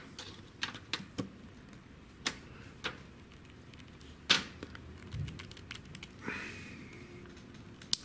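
Black plastic MC4 solar cable connectors, a male and a female half, handled and pushed together: a scatter of small sharp plastic clicks and taps, the loudest about halfway through and another sharp click near the end.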